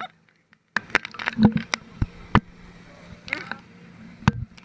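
Sea spray and water splashing against an action camera riding on a towed banana boat, with many sharp knocks as water hits the camera. It starts suddenly about a second in.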